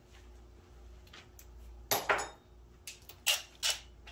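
Metal tools or parts clinking as they are handled: one sharp clink about two seconds in and two more near the end, over a low steady hum.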